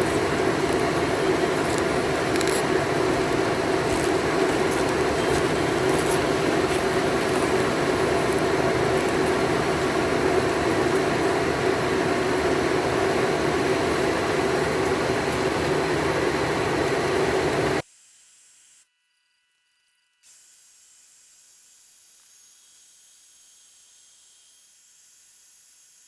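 Steady engine-driven machine noise with a constant hum. It cuts off suddenly about eighteen seconds in, leaving only faint hiss.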